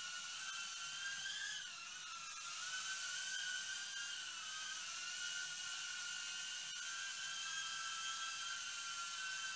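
FuryBee F36 mini quadcopter in flight: its small motors and propellers give a steady high whine that wavers in pitch as it manoeuvres, briefly dipping in loudness about two seconds in.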